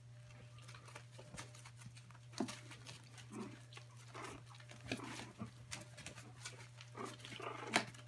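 A litter of three-and-a-half-week-old puppies making small grunts and squeaks as they scuffle about together, over a steady low hum. The loudest squeak comes near the end.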